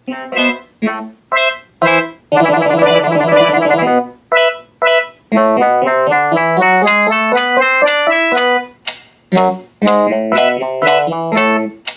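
Keyboard music: a tune of short separate chords, a held dense cluster of notes about two and a half seconds in, then a run of changing notes.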